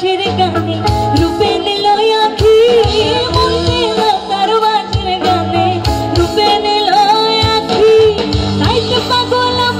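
Live band playing a song: a woman sings a wavering melody with vibrato through a microphone over electric bass and keyboard, all amplified through the stage PA.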